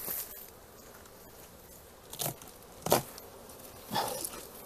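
Honeybees buzzing around an opened wild colony, broken by four short knocks and scrapes as the wooden structure holding the nest is handled and tipped over; the loudest comes about three seconds in.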